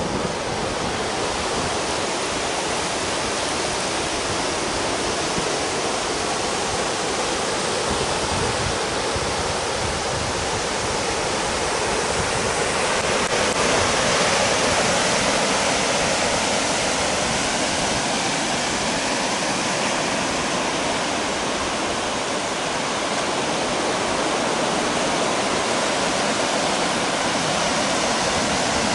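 Steady rushing hiss of surf breaking on a flat sandy beach, with no single wave crash standing out; it swells slightly about halfway through.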